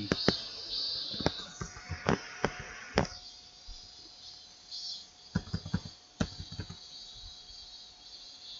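Computer keyboard typing: scattered keystrokes over the first few seconds, then a quick run of about six keys near the middle, over a faint steady tone and hiss.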